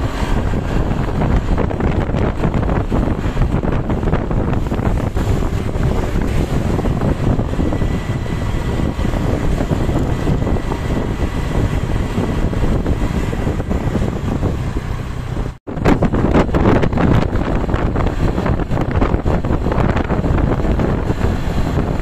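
Wind buffeting the microphone over a steady low vehicle rumble. The sound cuts out for an instant about two-thirds of the way through.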